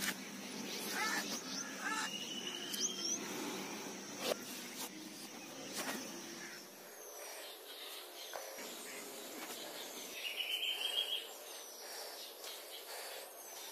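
Wild birds chirping and calling: short chirps in the first few seconds, a run of short falling whistles through the second half, and a quick trill about ten seconds in. A faint steady high-pitched sound and a few soft knocks lie under them.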